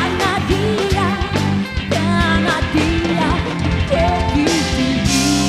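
Band music with a steady drum beat, bass and a wavering melody line, settling into a held chord near the end.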